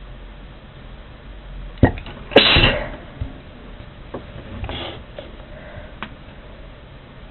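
One loud sneeze about two and a half seconds in, preceded by a sharp catch of breath and followed a couple of seconds later by a softer breathy sound.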